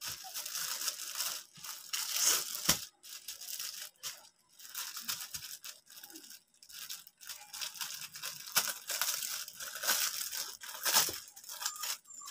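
Clear plastic garment bag crinkling and rustling in irregular bursts as it is pulled open by hand to unwrap a T-shirt.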